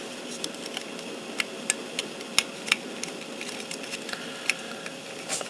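Small, irregular clicks and taps of hard plastic model-kit parts being handled and pressed together, over a faint steady hum.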